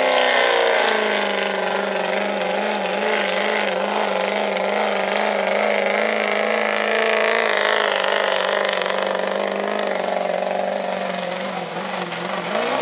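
Diesel pickup truck engine held at high revs under full load, dragging a weight-transfer pulling sled. It is a steady, loud drone whose pitch wavers slightly, easing a little near the end.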